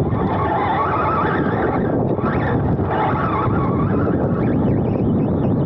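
Wind buffeting the onboard camera's microphone on an electric 2wd RC buggy running flat out across turf, with the drivetrain and tyres whirring underneath and the pitch shifting as the buggy speeds up and slows.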